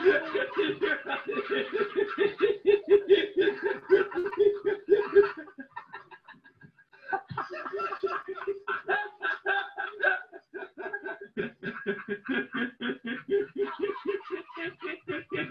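A young man laughing uncontrollably in fast runs of high 'ha ha ha', about six a second, breaking off for a breath about five seconds in and then starting up again.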